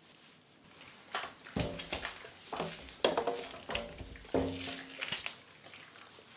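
Wet slime squelching and slapping as hands knead and lift it in a stainless steel tray, with several short pitched squeaks mixed in, the longest a held note about four and a half seconds in.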